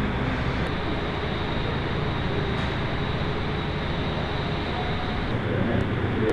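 Steady background noise of running machinery in a large workshop: a constant rush with a low hum underneath, shifting slightly about a second in and again near the end.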